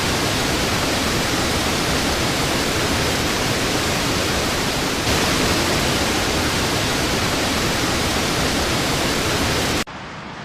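Loud, steady rush of water, as from a flood torrent, with no rhythm or tone in it. It grows slightly louder about halfway through and drops away sharply near the end.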